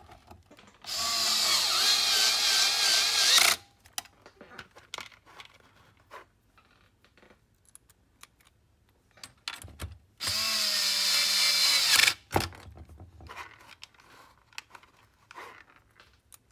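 Cordless drill-driver running twice to drive in two screws. The first run lasts nearly three seconds and the second about two, with light handling clicks between.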